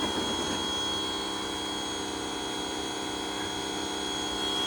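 Pressure washer running steadily, a constant motor-and-pump hum with a thin high whine over it.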